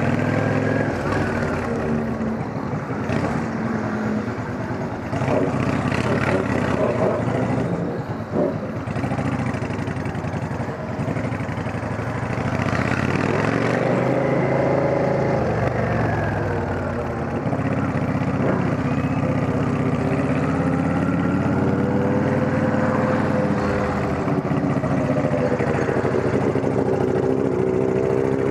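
Motorcycle engines with straight-through exhausts running on the road, the engine note rising and falling again and again as the throttle is opened and closed.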